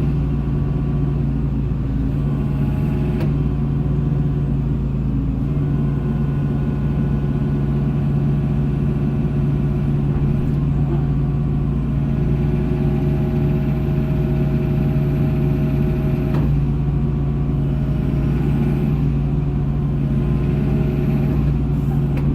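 John Deere 225D excavator's diesel engine running at a steady speed, with faint shifting whines above it and a brief click about three seconds in and again about sixteen seconds in.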